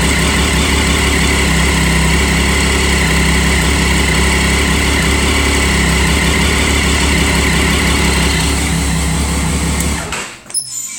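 Triumph Daytona 675 inline-three with a TOR aftermarket exhaust idling steadily, then switched off about ten seconds in, the sound cutting away suddenly with a few light clicks after it.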